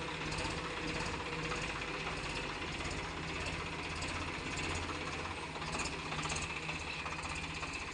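Swaraj tractor's diesel engine running steadily at low revs.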